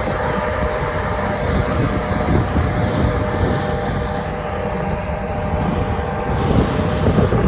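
Combine harvester running steadily: a loud, even mechanical drone with a few steady tones over a rumbling low end.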